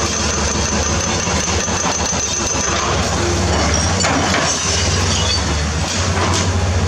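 Volvo EC210B hydraulic excavator's diesel engine running steadily under working load with a strong low hum. Brief rattles of concrete rubble breaking and falling come about four and six seconds in.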